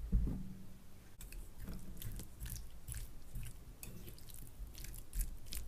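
Close-miked chewing of rice, shrimp and scallops in a creamy sauce, with many short mouth clicks and smacks a few times a second.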